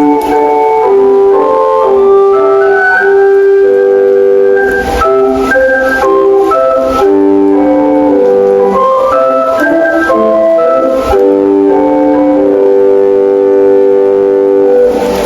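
Municipal disaster-prevention radio chime: a simple melody of held notes in an electronic organ-like tone.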